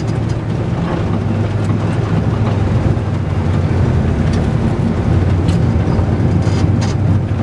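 Cabin sound of a GMC Syclone's turbocharged 4.3-litre V6 running steadily at low speed as the truck rolls slowly, a constant low engine drone.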